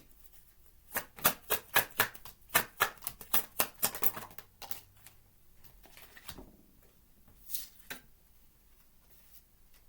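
An oracle card deck being shuffled and handled. A run of sharp card slaps and clicks comes at about three a second for a few seconds, then two more follow a few seconds later.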